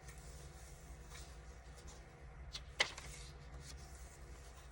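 Faint rustling and tapping of paper as a handmade journal's pages are handled and turned, with one sharper click about three seconds in, over a steady low hum.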